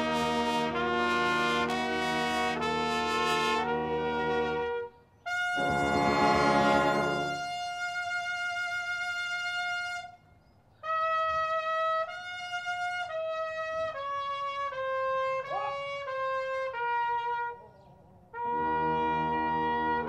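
Serbian brass band rehearsing. The full band plays chords and breaks off just before 5 s. It comes back with a loud swell and a long held note. After a short gap one trumpet plays a melody alone, and the whole band comes back in near the end.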